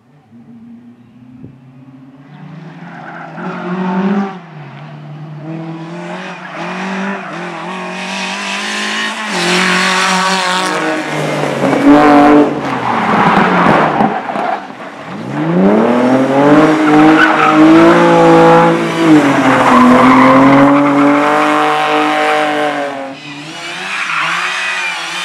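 Race car engine at full throttle, faint at first and growing louder as it approaches, revving up and dropping back again and again through gear changes and lifts, with tyre squeal.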